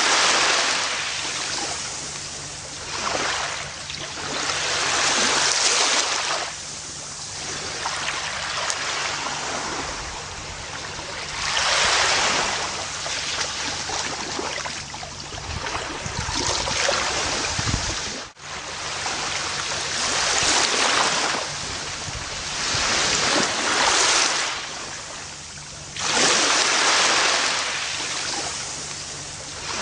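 Ocean waves breaking and washing up a beach, each surge swelling and fading every few seconds. There is a brief dropout about two-thirds of the way through.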